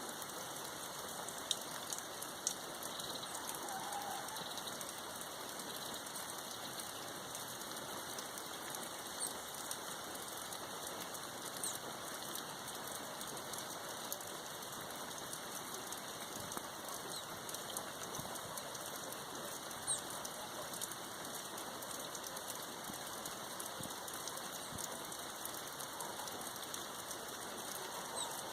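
Steady rain falling, an even hiss with scattered sharper drop ticks and a few louder single taps.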